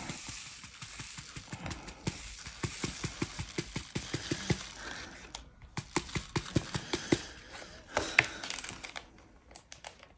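Square crystal diamond-painting drills clicking and rattling against a plastic sorting tray as it is handled and tipped. The clicks come several a second, irregular, and stop about a second before the end.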